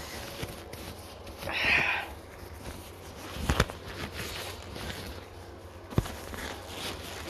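Vinyl gloves rustling as they are pulled on, loudest about a second and a half in, then two sharp knocks from handling, with low rumble from the handheld camera.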